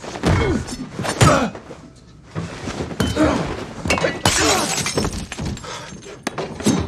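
Film fight sound effects: glass shattering and breaking among a run of sharp knocks and heavy thuds, the loudest hit a little over a second in.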